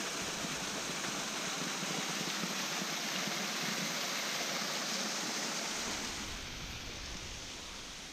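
Small waterfall on a stream, water splashing over it in a steady rush that grows a little quieter in the last couple of seconds.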